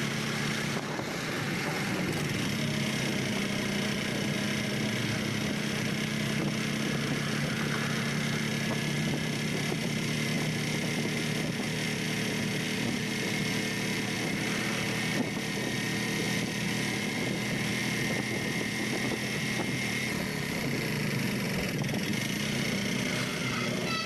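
A motor vehicle's engine running steadily at a fairly even pitch.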